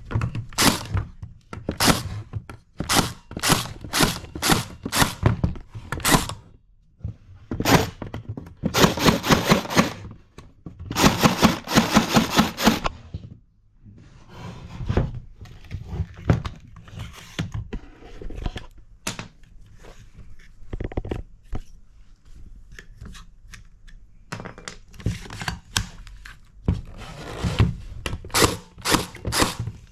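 MAX TG-Z4 battery-powered staple tacker being fired over and over with no staples loaded: sharp striking snaps, first about two a second, then two quick rapid-fire runs, a stretch of softer handling noise, and more strikes near the end. It keeps firing empty because its dry-fire lockout is not working.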